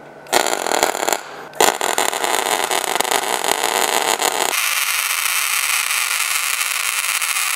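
Gasless flux-cored arc welding on thin stainless steel plate with stainless flux-cored wire and the torch on negative polarity: the arc crackles and sputters as spatter flies. A short first burst stops, and the arc strikes again about a second and a half in and runs on steadily. Partway through, the sound turns thinner and hissier.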